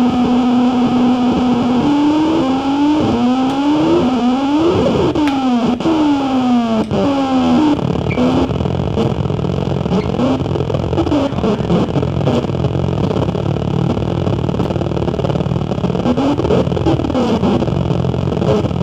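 Loud live noise music run through effects: a held droning tone breaks into repeated swooping pitch glides that fan up and down over one another, then about eight seconds in gives way to a dense, distorted wash with only occasional glides.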